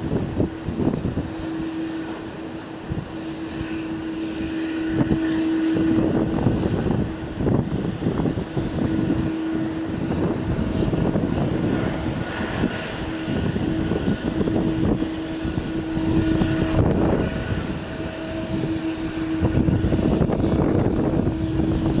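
Jet engines of a Boeing 777 airliner at taxi idle: a steady hum with a held whine, with wind buffeting the microphone in irregular gusts.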